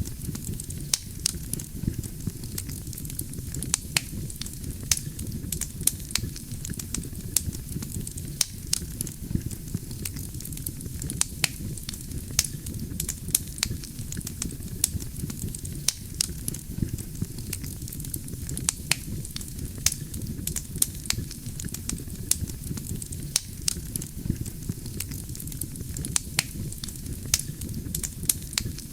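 Wood campfire burning: a steady low rumble of flames with frequent, irregular sharp crackles and pops from the burning logs, several a second.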